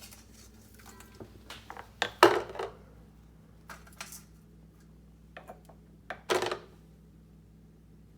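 Scattered knocks and clatters as a small child handles an orange juice bottle with rocks already inside, with a louder clunk about two seconds in and another about six seconds in.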